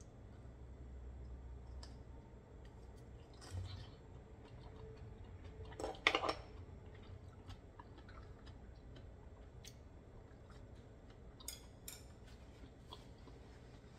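Chopsticks and raw oyster shells clicking and clinking on a tray, with scattered faint clicks. A louder clatter comes about six seconds in, and two sharp clicks near the end.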